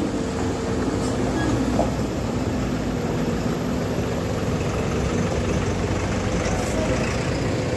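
Loaded Tata truck's diesel engine running steadily under load as the truck creeps up a muddy, potholed slope.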